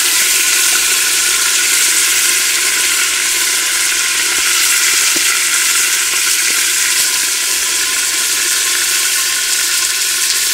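Beef searing in hot oil and fat in an Afghan kazan pressure cooker: a loud, steady sizzle.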